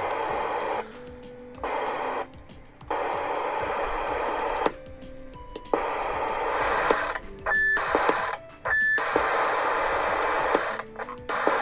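CB radio speaker hissing with receiver static, cut off for under a second about five times as the set switches over, each switch marked by a click and a short stepped chirp. Near the middle, two brief high beeps of the roger bleep sound.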